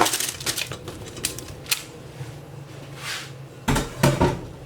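Boiled potatoes being put onto a metal baking tray: scattered knocks and clatter of cookware, loudest near the end.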